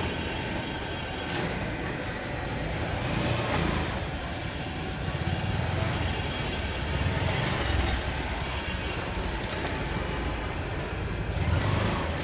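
A heavy vehicle's engine running, a steady low rumble with gentle swells in loudness.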